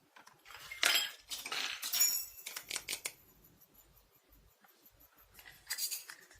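Small toy kitchen pieces clinking and clattering as they are handled, with some high ringing. A run of clinks comes about a second in, and a shorter clatter comes near the end.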